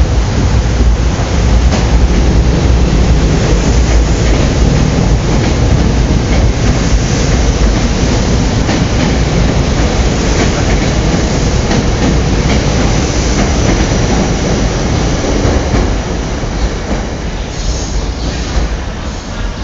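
SEPTA Silverliner IV electric commuter train running past along the platform: a loud, steady rumble of wheels on rail that fades as the last cars go by near the end.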